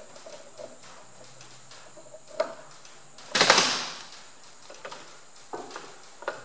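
Hand-work on a small metal oil pump with pliers: a few light clicks of metal parts, and one louder scraping rustle lasting under a second about three and a half seconds in.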